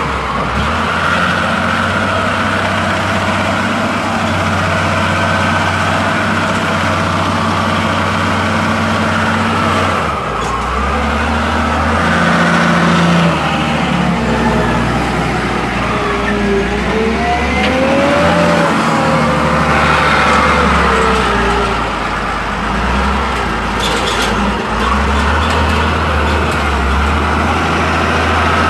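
Caterpillar 950F wheel loader's six-cylinder diesel engine running close up, its revs rising and falling as it works. About halfway through, a whine glides up and down in pitch.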